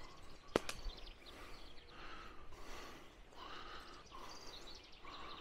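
Faint outdoor ambience of footsteps brushing through tall grass, with small birds chirping now and then in the trees. A single sharp click about half a second in.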